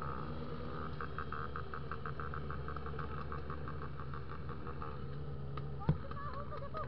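Honda XR 250 Tornado motorcycle's single-cylinder engine running steadily under way. A single sharp knock sounds about six seconds in.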